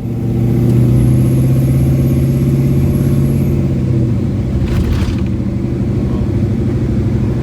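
Chevrolet K5 Blazer's engine running steadily close by, with a deep even note that eases off slightly about four seconds in.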